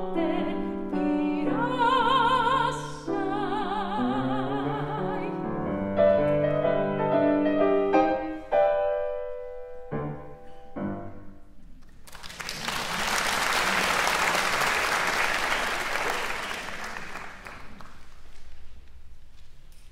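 Soprano singing with wide vibrato over grand piano, ending a classical art song: the voice stops about eight seconds in and the piano closes with a few chords. The audience then applauds for about six seconds, fading away near the end.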